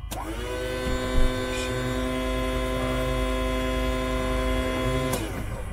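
Cessna 172's electric auxiliary fuel pump switched on to prime the engine before start: a steady electric whine that comes up to pitch at once, holds for about five seconds, then winds down as it is switched off. A brief thump about a second in.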